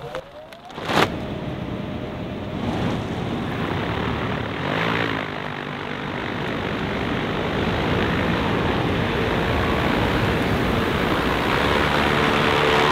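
Electric hovercraft's brushless motors and 3D-printed compression propellers spinning up, with a sharp knock about a second in. Then a steady, loud rush of the propellers running at power.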